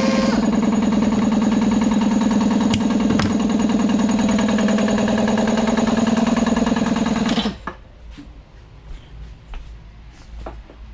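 A motor-driven shop tool runs steadily with a low hum and a fast, even flutter, with two light clicks a few seconds in. It cuts off suddenly about seven and a half seconds in, leaving a few small handling sounds.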